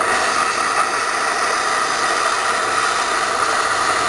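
Straight-tipped oxy-acetylene cutting torch hissing steadily as it cuts through a steel door hinge pin.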